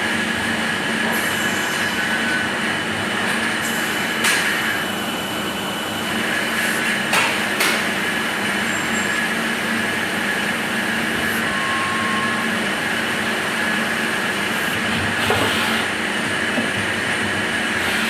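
CNC machine running steadily, a constant machine drone with a high steady whine, broken by a few brief sharp clicks about four, seven and fifteen seconds in.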